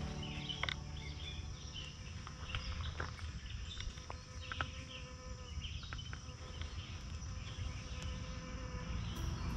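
Outdoor ambience with an insect buzzing steadily, faint high chirps and a few small clicks over a low rumble of noise.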